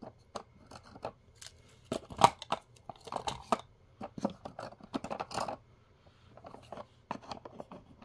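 Small plastic toy pieces being handled and set into the compartments of a plastic display case: an irregular run of clicks and taps mixed with rustling, the sharpest tap about two seconds in.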